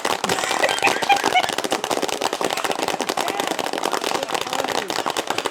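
Homemade crowd applause sound effect: many layered recordings of individual people clapping, making a dense, continuous applause, with a few voices calling out over it.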